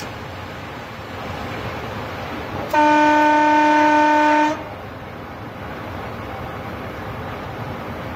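Train horn sounded once from the locomotive, a single steady multi-tone blast of about two seconds that starts about three seconds in and cuts off sharply, over the steady rumble of the train running along the track.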